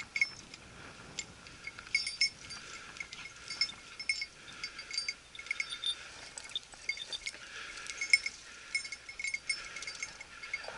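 A hunting dog's collar bell jingling in quick, irregular clusters as the dog works through the scrub.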